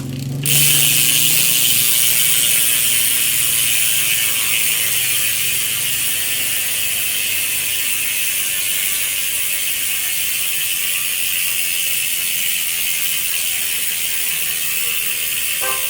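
Bicycle freewheel ticking rapidly and steadily as the rear wheel spins, growing a little quieter as it runs.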